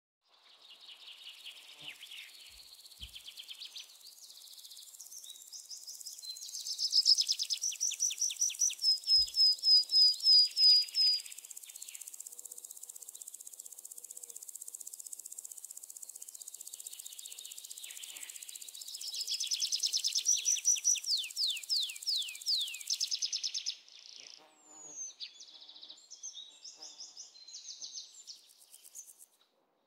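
Forest ambience: a steady high insect hiss with birds singing over it. There are two loud bouts of rapidly repeated high notes, about three a second, near the middle and again about two-thirds of the way through, then quieter scattered chirps.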